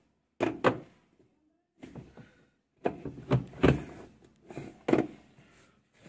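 Irregular hard plastic knocks and clunks as parts in the wash tub of a semi-automatic washing machine are handled and worked loose by hand: a pair early, then a closer run of knocks in the second half.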